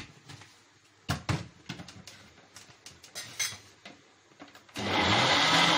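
A few light clicks and knocks, then almost five seconds in an electric blender switches on abruptly and runs steadily, puréeing onion, tomato and pepper with oil, vinegar and water into a marinade.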